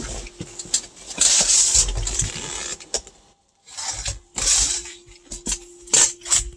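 Creality CR-10 S5 3D printer running a print, its stepper motors on TMC2208 drivers in UART mode. A steady hum carries on under loud bursts of rustling noise about a second in and again around four seconds, and several sharp clicks.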